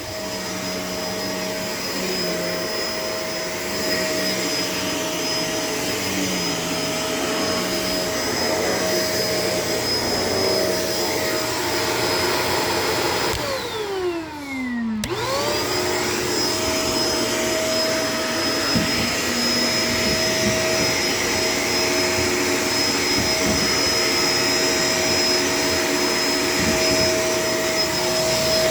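Shark LA702 vacuum cleaner running with a steady motor whine. About halfway through, the motor winds down briefly, falling in pitch, then spins straight back up and runs steadily again.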